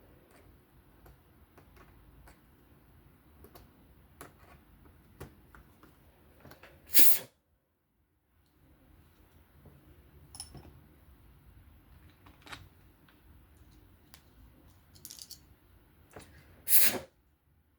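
Light clicks and taps of small knife parts and tools being handled while a folding knife is taken apart, with two louder sharp noises, one about seven seconds in and one near the end.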